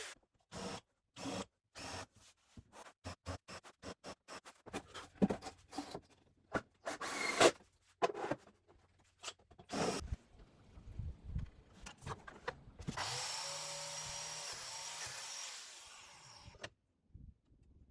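Woodworking tool sounds cut into many short snippets: brief tool noises and knocks on pine boards, then a power tool running steadily for about three and a half seconds before stopping.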